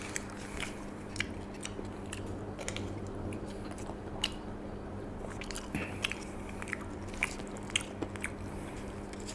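A person chewing mouthfuls of lasagna, with irregular small clicks and scrapes from a plastic spoon in an aluminium foil tray, over a low steady hum.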